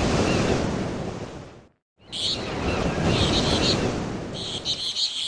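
Seaside nature ambience: steady surf with birds chirping in short runs. It drops out to silence for a moment just under two seconds in, then resumes.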